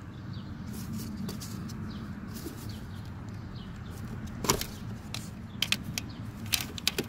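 Sharp plastic clicks and taps of hands working the wiper motor's wiring connector: one click about halfway through, then several quick clicks near the end, over a steady low background hum.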